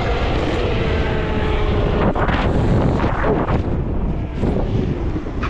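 72-volt Razor electric bike running at full throttle on an icy road: a steady motor whine for the first two seconds or so, under heavy wind rush on the microphone.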